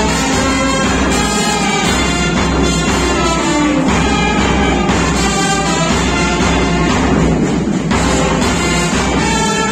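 Brass band with saxophone playing a tune, the horns holding sustained melody notes over a steady low accompaniment.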